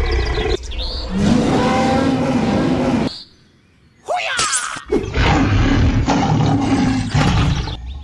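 Dinosaur roar sound effect, twice: a long roar, then after a brief pause a short squeal and a second long roar.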